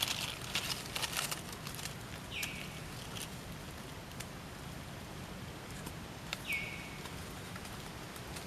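Short high animal calls, each dropping in pitch and then held briefly, twice about four seconds apart, over light rustling and scattered clicks.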